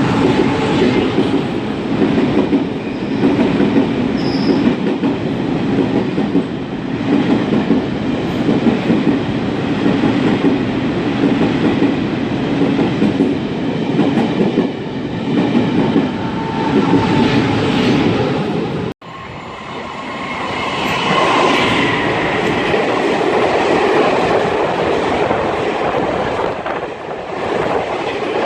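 A train running past on the rails, with a steady, loud rumble of wheels and cars. About two-thirds of the way through, the sound cuts out for an instant and resumes, brighter in tone.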